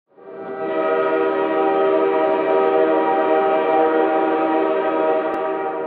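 Train horn sounding one long, steady chord of several tones, fading in at the start and easing off near the end.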